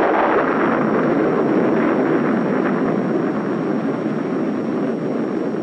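Long, dense rumbling roar of an atomic bomb explosion on an old film soundtrack. It carries on without a break and eases off slightly toward the end.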